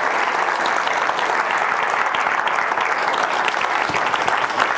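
Audience applauding steadily, a dense clatter of many hands clapping at the close of a talk.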